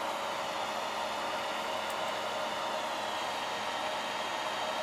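The cooling fans of a large 3D printer running: a steady, even whir with a constant hum in it.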